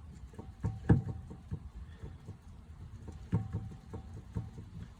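Steering rack of a 2017 VW Polo being rocked with a pry bar, giving groups of sharp knocks with a short metallic ring, about a second in and again at about three and a half seconds. The knocking is the sign of play in the steering rack.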